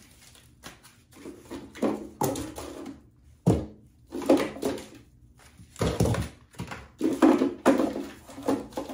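Toiletries and small items being shifted and set down inside a bathroom vanity drawer and cabinet: a string of irregular clunks and rattles, the loudest knocks about three and a half, six and seven seconds in.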